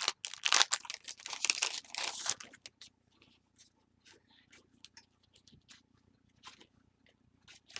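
Paper and card rustling and crinkling as recipe cards are slid out and handled: a busy patch of rustling for the first two seconds or so, then only scattered light rustles and taps.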